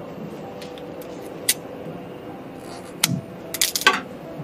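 Sharp clicks and clatter of plastic pneumatic air tubing being handled and pushed into push-in fittings on the cabinet's valves: a single click about a second and a half in, another about three seconds in, then a quick run of clicks near the end, over a steady hum.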